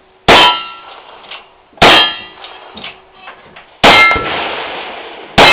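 Four rapid gunshots, about one and a half to two seconds apart, each followed at once by the ringing clang of a struck steel target. The third shot leaves a longer, noisier tail.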